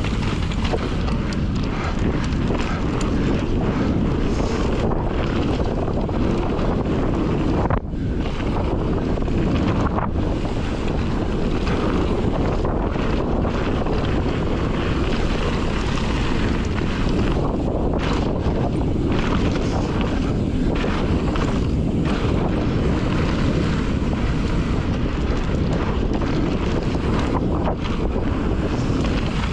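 Wind rushing over a helmet or chest camera's microphone while a mountain bike rides fast down a dirt trail, with tyre noise underneath. The noise is steady and loud, dipping briefly about eight seconds in.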